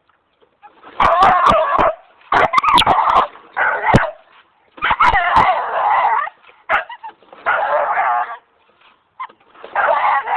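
A dog gives a run of about six drawn-out, wavering yelping barks and whines, about a second apart, with a few sharp clicks in between.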